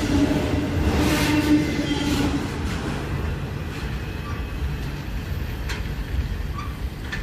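Rear cars of a CSX freight train, autorack cars, rolling past on the rails and moving away: a steady rumble with a steady tone that stops about two and a half seconds in, after which the rumble fades as the train recedes.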